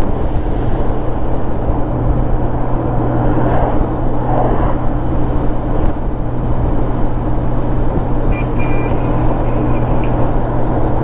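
Touring motorcycle cruising at steady highway speed: an even engine hum under a constant wash of wind and road noise.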